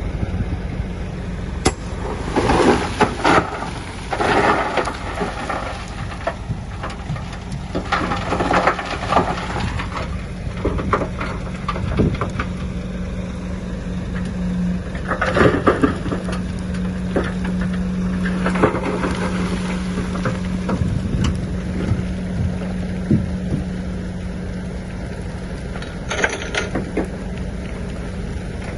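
A heavy earthmoving machine's diesel engine running steadily, with repeated bouts of crunching and rattling as soil and stones are pushed or tipped and tumble.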